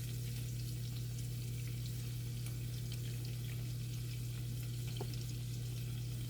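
Pieces of tripe, gizzard and beef frying in oil in a pan: a steady sizzle with fine crackles, over a steady low hum.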